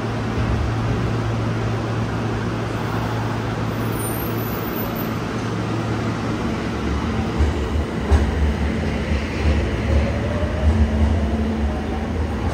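Yokohama Municipal Subway Blue Line train pulling out, its Mitsubishi hybrid SiC VVVF inverter giving a whine that rises in pitch as it accelerates. From about halfway in, wheel rumble and knocks over the rails grow louder.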